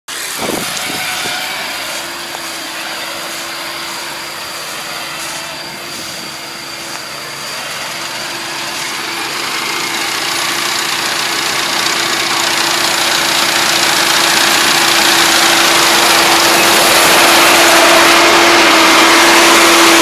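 Iseki combine harvester running as it harvests rice: a steady engine hum over a broad mechanical whir, growing louder through the second half as the machine comes close.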